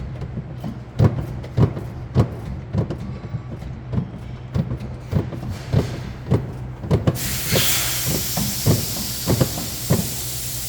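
Crankshaft of a petrol engine being turned by hand with a wrench, knocking about twice a second over a steady low hum. About two-thirds of the way in, a steady hiss of compressed air starts from the leak-down tester in the spark-plug hole as the cylinder is being brought onto its compression stroke.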